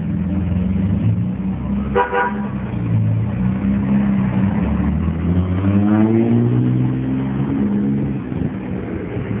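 A classic sports car's engine running as it drives slowly past, with a short horn toot about two seconds in. Around five seconds in the engine note rises as the car accelerates away.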